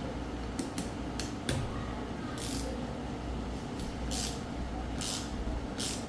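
Aerosol can of rust-penetrant spray lubricant giving about four short squirts, each a brief hiss, after a few light clicks of small parts being handled. A steady low hum runs underneath.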